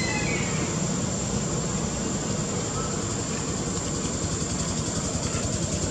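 Low, steady engine rumble like a motor vehicle running nearby. About two-thirds of the way through, an even pulsing beat comes in.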